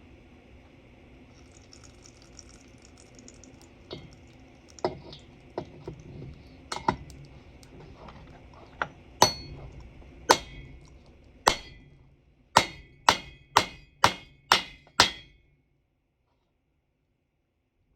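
Ringing metal hammer strikes driving a 46 mm valve seat into a race cylinder head. First a few scattered blows, then a run of six even blows about two a second.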